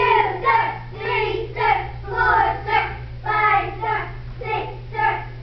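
Young children's voices chanting in a steady rhythm, two to three syllables a second, over a steady low hum.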